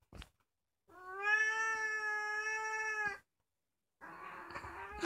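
A young orange tabby cat giving one long, steady meow lasting about two seconds, demanding to have a closed door opened, followed near the end by a quieter breathy noise.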